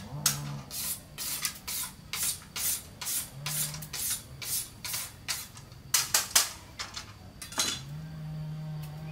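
Short scraping strokes repeating irregularly, two or three a second, with a low steady hum near the end.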